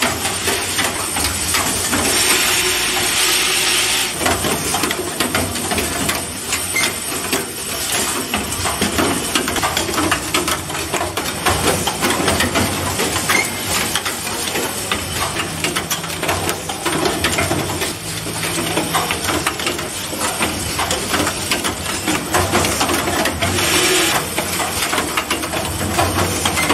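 Automatic assembly machine running, its pneumatic cylinders and grippers clacking over and over in a dense, irregular clatter. Bursts of compressed-air hiss come in the first few seconds and again near the end.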